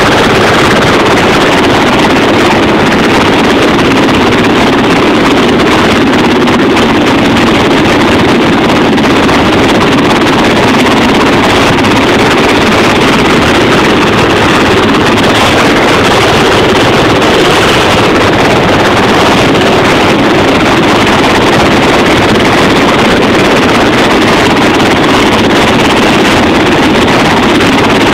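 Loud, steady rush of ship engine noise and wind buffeting the microphone on a vessel's deck at sea, unchanging throughout.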